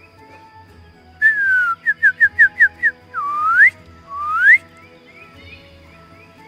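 Someone whistling a signal call: one falling note, a quick run of six short notes, then two rising whistles, over soft background music.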